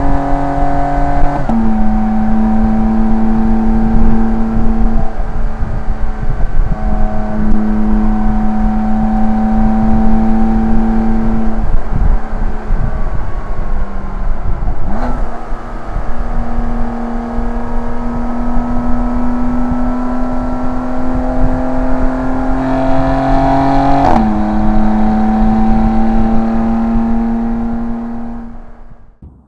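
BMW M2 Competition's twin-turbo straight-six, breathing through a Remus race rear-section exhaust, running under steady driving load. The engine note steps down suddenly about a second and a half in and dips briefly around halfway. Near the end it jumps up in pitch and then slowly sinks. The sound then fades out.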